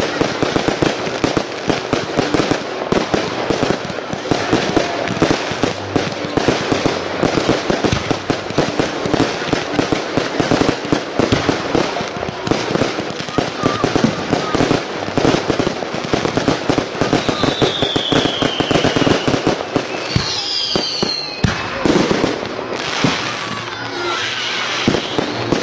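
A fireworks display going off in a dense barrage of aerial shell bursts, with rapid bangs and crackles. A couple of whistles glide down in pitch about two-thirds of the way through.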